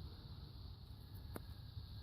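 Faint steady background hum with a single light click about a second and a half in.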